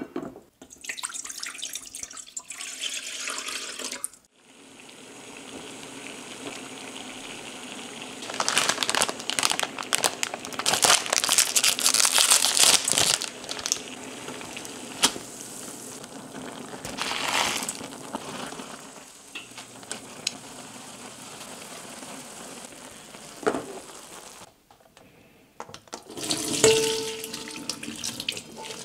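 Water boiling in a wok on an induction hob while a block of instant ramen noodles cooks in it, with a stretch of crackling and clatter as the noodles go in and loosen. Near the end, the noodles and water are drained through a metal strainer into a stainless steel sink with a short rush of water.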